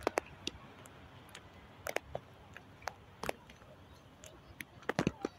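Heavy raindrops striking close to the microphone as irregular sharp ticks, several a second at times, over a faint steady hiss of rain.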